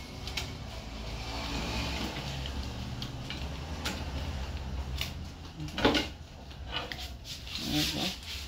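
A hybrid battery pack's bus bar piece being pulled out by hand: a few seconds of scraping and rubbing, then a few clicks and knocks as parts are handled.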